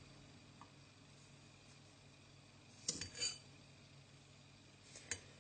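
Faint clinks of a spoon against a jar as sugar is spooned over chopped onion: a click and a short scrape about three seconds in, and another small click near the end, over quiet room tone.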